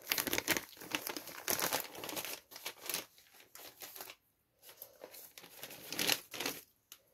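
Plastic packaging crinkling and rustling as it is handled, in irregular bursts, with a short pause about four seconds in and a louder burst around six seconds.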